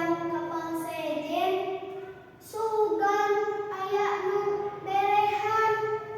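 A child singing solo in long held notes, two phrases with a short breath about two seconds in, with no instruments under the voice.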